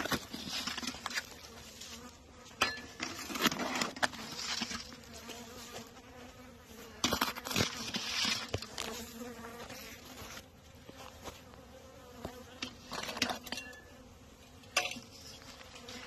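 Honeybees flying around their hives on a winter cleansing flight, a steady hum throughout. Over it come irregular crunching and rustling footsteps through dry grass.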